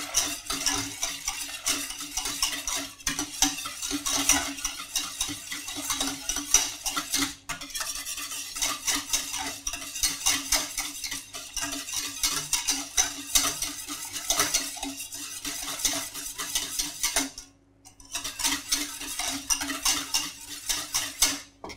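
A wire whisk beating a milk and cream mixture in a stainless steel saucepan, the wires scraping and clinking rapidly against the pan. It stops briefly near the end, then resumes, with a steady low hum underneath.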